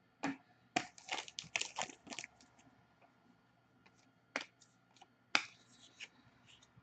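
Trading cards being handled and flicked through: a quick run of crisp card clicks and snaps, then a few separate ticks.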